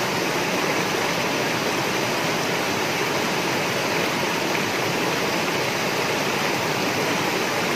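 Steady rush of flowing river water, an even hiss with no breaks or changes.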